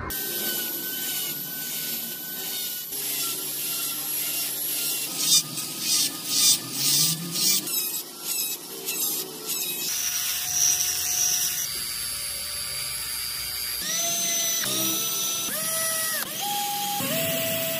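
A small rotary tool whines as it carves tread grooves into a wooden toy tyre, biting in and easing off in short strokes about twice a second. Then an electric drill bores into the wooden wheel hub: it starts and stops several times, its pitch rising and falling, and runs steadily near the end.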